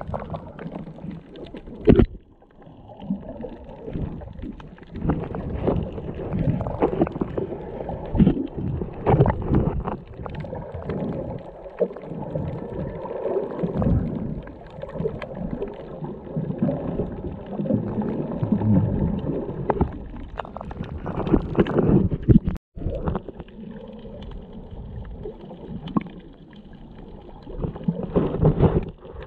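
Muffled, irregular sloshing and gurgling of water, picked up underwater by a GoPro Hero7 Black's microphone, with a sharp knock about two seconds in.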